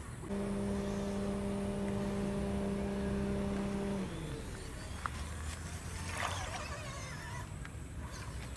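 Small electric motor and gearbox of an MN99s 1/12-scale RC crawler whining at a steady speed for about four seconds, then winding down and stopping. Afterwards there are scattered crackling and scraping sounds and a single click.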